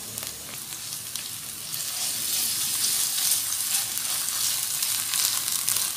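Chopped onions and ginger-garlic paste sizzling in hot oil in a non-stick pan, stirred with a spatula; the sizzle grows louder about two seconds in.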